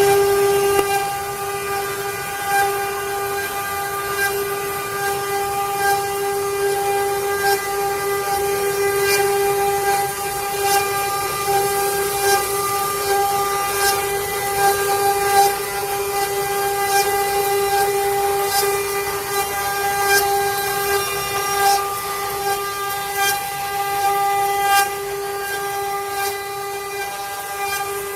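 Six-head CNC wood carving router running, its spindles giving a steady high whine that holds one pitch throughout, with scattered sharp ticks from the cutters in the wood.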